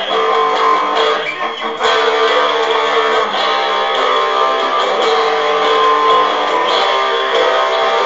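Guitar music: strummed chords and ringing, held notes, with a brief drop in loudness and a fresh strum about two seconds in.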